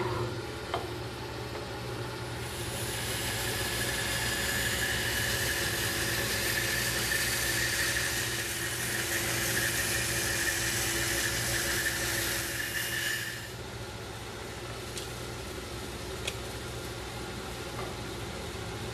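Bandsaw resawing a 1/16-inch veneer slice off a quarter-sawn white oak board: the motor runs steadily, and the blade in the cut adds a hiss and a high tone. The cutting sound drops away about 13 seconds in and the saw runs on without load.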